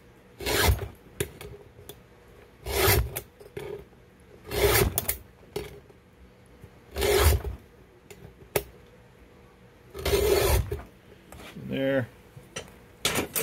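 Round chainsaw file in a file guide rasping across the cutter teeth of a chainsaw chain in slow single strokes, about one every two seconds. The top-plate angle of the cutters is being reground from 30 to 10 degrees to make a ripping chain.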